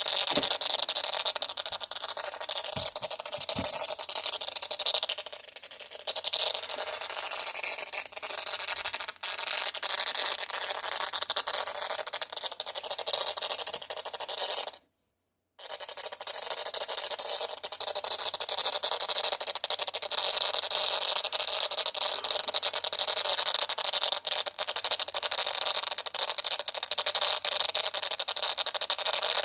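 Abnormal noise from a GoPro camera: a steady, crackling hiss with a strong high edge, dropping out completely for about a second near the middle.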